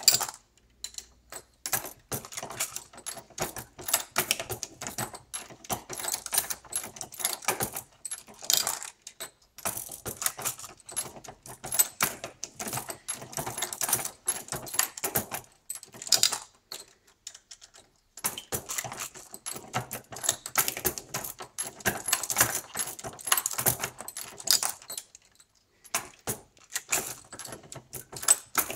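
Modified Lee Classic Turret reloading press being cycled while loading 9mm Luger rounds: a steady run of metallic clacks and clicks from the press's indexing turret, feeders and linkage, with brass cases and rounds clinking. The clatter stops briefly twice, once past the middle and once near the end.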